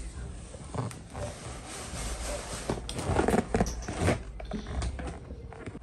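Cardboard appliance box being slid and dragged out of a shelf by hand: irregular scraping and rustling, with several light knocks.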